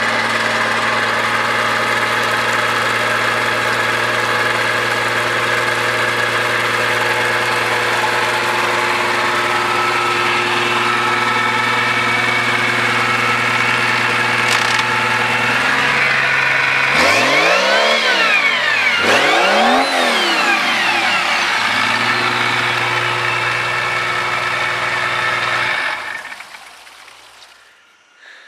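Mercedes-Benz OM603 straight-six turbodiesel with an uprated injection pump and a Holset turbo, idling steadily just after starting. About two-thirds through it is revved up and back down twice in quick succession, then it idles again and is shut off near the end.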